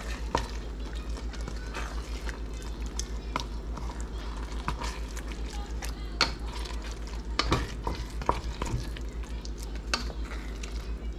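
Wooden spoon stirring a thick ground-beef and tomato sauce sloppy joe mixture in a large aluminium pot, with irregular scrapes and knocks against the pot, loudest a little past the middle. A steady low hum runs underneath.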